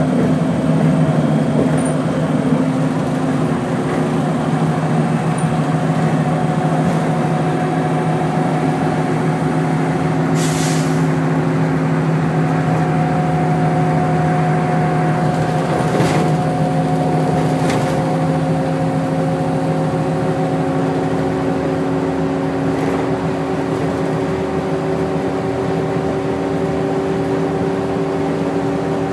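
Drivetrain and road noise of a NABI 40-LFW bus with a Cummins ISL-G natural-gas engine and Allison B400R automatic transmission, heard from inside the cabin: a steady multi-tone drone at an even speed over tyre noise. About ten seconds in there is a short hiss, and a few light rattles follow.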